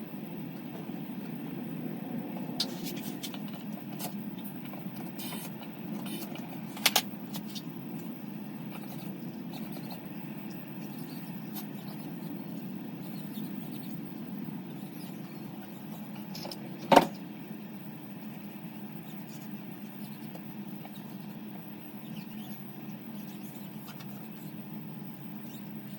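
Steady low hum under scattered clicks and knocks of tyre-changing work on a motocross bike, with a pair of clicks about 7 seconds in and the loudest sharp knock about 17 seconds in.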